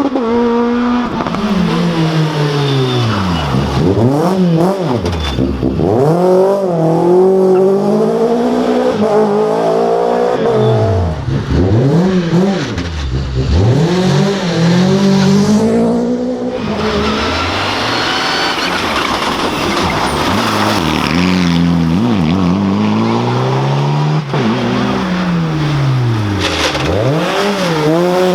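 Rally car engine revving hard, its pitch repeatedly dropping sharply and climbing again through gear changes and lifts of the throttle as the car is driven flat out along the stage.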